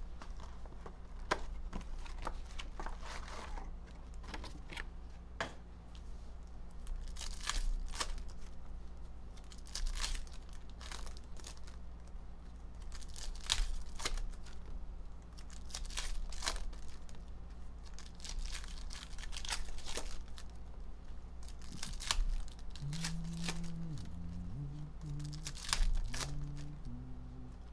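Foil Panini Prizm basketball retail packs being torn open by hand one after another, the wrappers crinkling and crumpling in short, irregular rips throughout.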